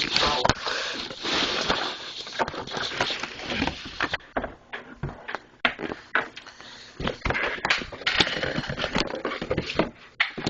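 A cardboard box and its packaging being opened and handled: steady rustling and scraping with many sharp clicks and knocks, quieter for a stretch around the middle.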